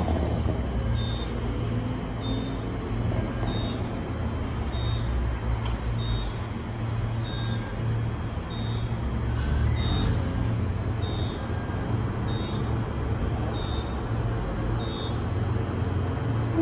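A heavy vehicle's low, steady engine or machinery rumble, with a short high-pitched beep repeating evenly about every second and a quarter, like a warning or reversing alarm.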